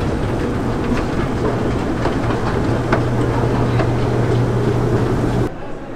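Escalator running: a steady mechanical hum and rattle with scattered clicks from the moving steps, cutting off abruptly near the end.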